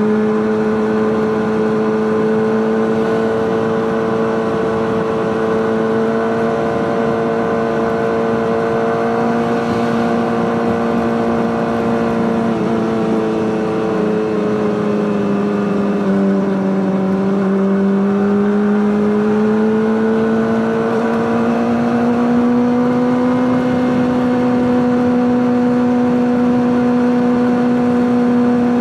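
Honda CBR600RR's inline-four engine running through an Akrapovic exhaust at steady, fairly high revs. The pitch sags a little about halfway through, then climbs back up and holds.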